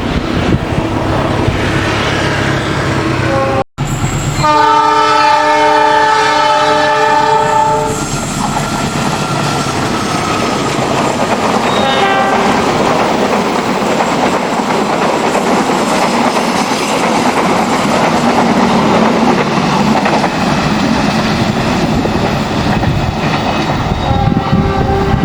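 Train horn sounding one long blast of several tones at once, lasting about four seconds, then the train running past with steady wheel-and-rail noise.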